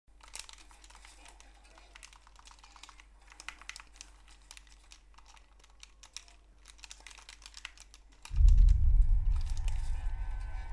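Computer keyboard typing in irregular bursts of clicks. About eight seconds in, a sudden loud deep boom enters and slowly fades, with music tones starting just after.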